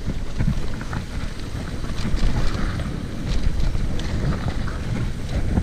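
Mountain bike rolling down a dirt trail: wind buffeting the camera microphone, with tyre noise and scattered clicks and rattles from the bike over rough ground.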